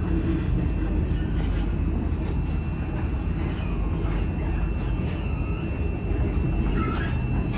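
City tram running, heard from inside the passenger car: a steady low rumble of the wheels on the rails, with a thin, steady high whine over it.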